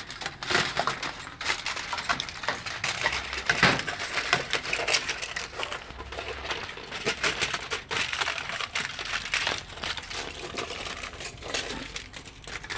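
Aluminium foil crinkling and crackling as it is crumpled and crimped by hand around a plate, a dense run of small crackles that goes on throughout.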